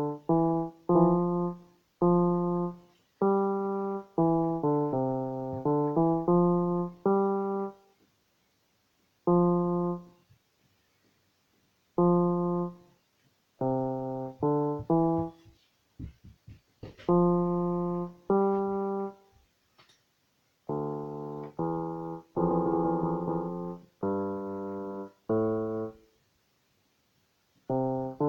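Casio CTK-100 electronic keyboard played one key at a time, single notes and short runs with pauses between, each note stopping when the key is released. Some keys give a faulty, bad-sounding note even after cleaning. A few short clicks sound about midway.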